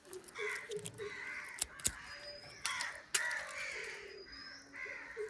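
Birds calling in a series of short, repeated calls, a few to each second or so.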